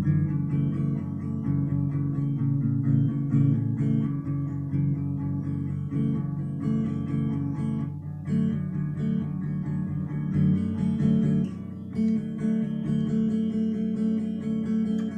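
Guitar music: chords played one after another in a steady flow, with a short dip about twelve seconds in.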